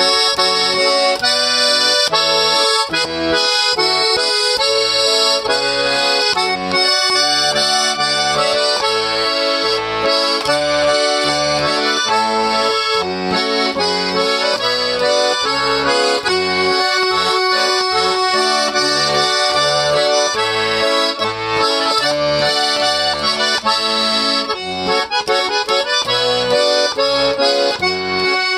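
Accordion music: a melody over a steady, regular bass-and-chord accompaniment.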